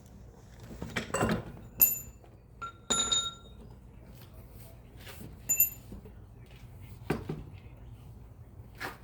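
Metal tools and parts being handled: several knocks and three sharp metallic clinks that ring briefly, about 2, 3 and 5.5 seconds in.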